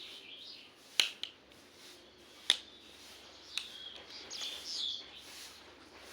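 Three sharp clicks or taps, the first two the loudest, about a second apart, with short bird chirps in the background near the start and again past the middle.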